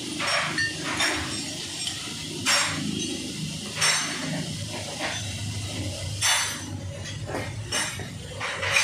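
Hand tool clinking and knocking against the steel front subframe and lower control arm of a Honda Mobilio, as work goes on at the arm's bushing. About eight short metallic knocks, each with a brief ring, come at uneven intervals.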